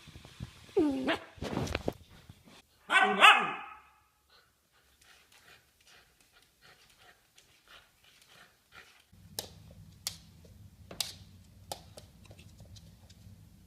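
A dog barking three times within the first few seconds, the third the loudest, followed by faint scattered clicks and a low steady hum.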